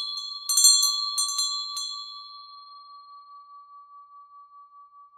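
Pull bell rung by its cord: the clapper strikes about four times in the first two seconds, the loudest about half a second in. It then rings out in one long, high, fading tone that pulses slowly as it dies away.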